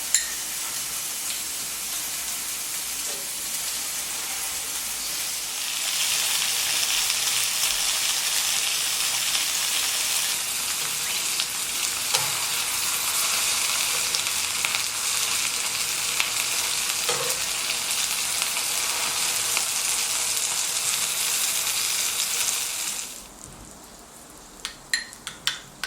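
Cod fillet sizzling as it pan-fries in oil: a steady sizzle that grows louder about six seconds in and drops away sharply near the end, leaving a few light clicks.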